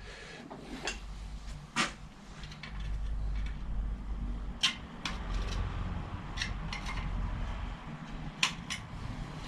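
Scattered small metal clicks and clinks of a hand tool working at a bicycle's rear-light mounting rail, which is badly rusted. A low steady hum runs underneath.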